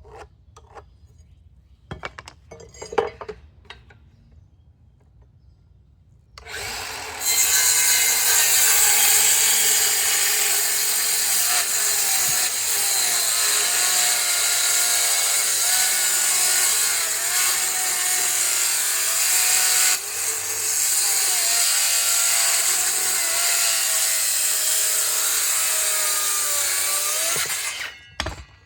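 A few knocks of handling, then from about six seconds in an electric power saw cuts through a wooden board for about twenty seconds, its motor pitch wavering under load, stopping just before the end.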